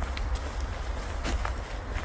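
Footsteps of a person walking outdoors, a few separate steps over a steady low rumble.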